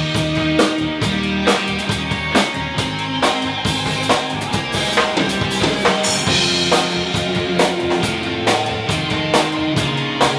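Live rock band playing an instrumental passage with no vocals: a drum kit keeps a steady beat of bass drum and snare under held bass and chord notes.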